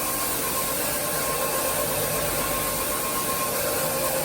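Tile-and-grout floor-cleaning machine running steadily: an even rushing noise with a faint steady whine over it.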